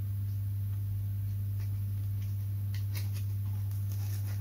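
Steady low electrical hum, mains-type, with one overtone above it. A few faint light ticks come between about one and a half and three seconds in, as a vinyl sticker is pressed onto a foam model fuselage.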